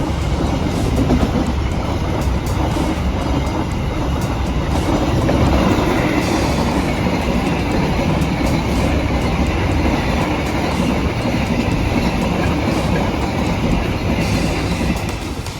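A train passing by: a steady, loud rumble with the wheels clacking over rail joints. It starts to fade near the end.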